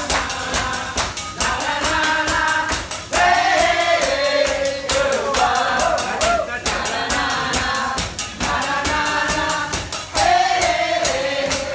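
Upbeat song with a singing voice over a steady percussive beat.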